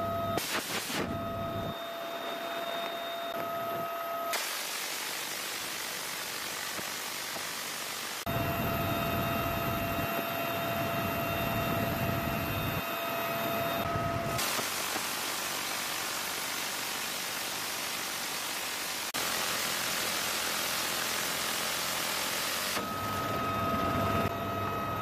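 Military helicopter in flight heard from inside the cabin: a steady turbine whine over rotor rumble. It alternates, at sudden cuts, with stretches of even rushing noise where the whine drops out.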